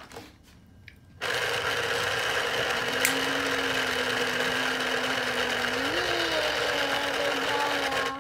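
Small electric citrus juicer's motor spinning the reamer cone under an orange half pressed down on it: a steady whirring hum that starts about a second in and cuts off suddenly near the end.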